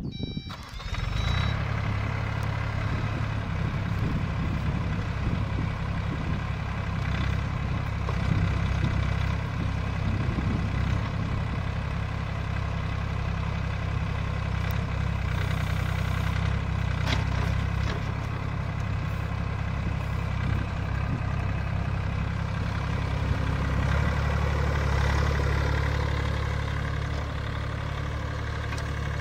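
Everun ERE18 1.8-ton mini excavator's diesel engine running steadily while the boom and bucket are worked and the upper structure slews.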